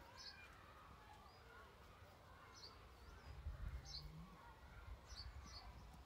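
Faint outdoor sound at a beehive: a honeybee buzzing close by for about a second a little past the middle, its hum rising slightly in pitch. Background birdsong of short high chirps repeating throughout, over a low rumble.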